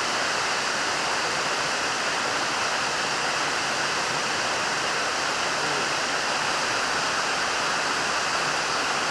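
Small waterfall rushing steadily, an even, unbroken wash of falling water.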